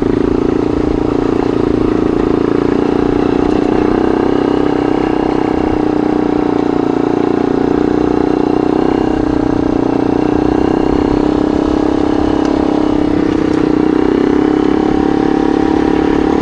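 Yamaha XT motorcycle engine running at a steady cruise, its even drone holding the same pitch throughout.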